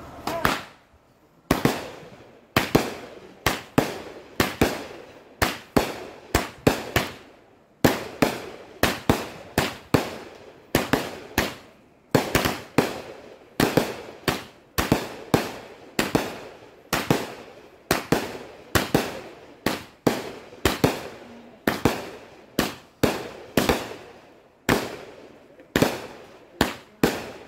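A Pyro Packed 'Emoji' 100-shot, 500-gram firework cake firing shot after shot. Its sharp launch thumps and bursting reports come about two or three a second without a break.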